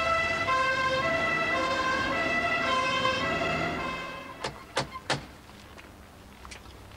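Two-tone emergency-vehicle siren alternating between two pitches, fading out about four seconds in. Then three sharp knocks on a house's front door.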